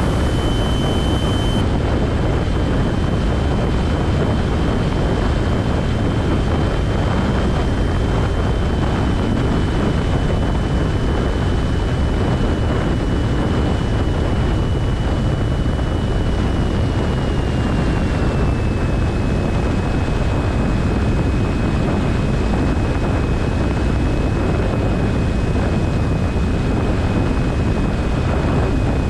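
Steady cabin noise of a Cessna 172SP in flight: its Lycoming IO-360 four-cylinder engine and propeller running with airflow around the cabin. A thin high whine runs through it and drops slightly in pitch in small steps, most clearly about two-thirds of the way in.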